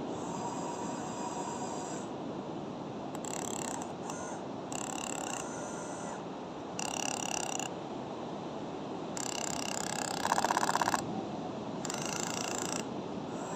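Excavator engine running steadily under work, with high-pitched whining that comes and goes several times and a brief rapid mechanical rattle about ten seconds in.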